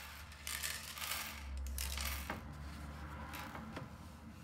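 Buttons being swept by hand off a whiteboard, sliding and clicking against one another, with a few separate sharp clicks in the second half.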